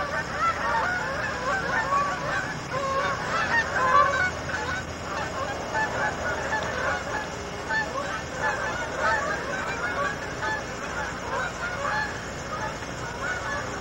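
A flock of geese honking, many calls overlapping continuously.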